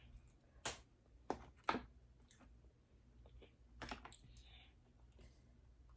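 Crawfish shells being cracked and peeled by hand: a few faint, sharp clicks and snaps, three close together in the first two seconds and another about four seconds in.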